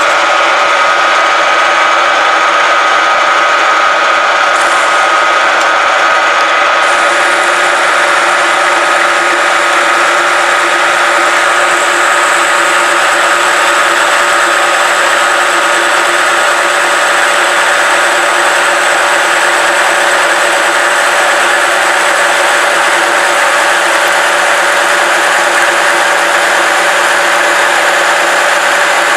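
Metal lathe turning a steel shaft: the spindle runs steadily while the tool cuts. The cutting noise is topped by a steady whine of several tones, with a higher tone joining about a dozen seconds in.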